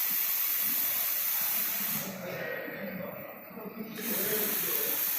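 Robotic welder hissing steadily during a weld pass. It cuts out about two seconds in and starts again about two seconds later.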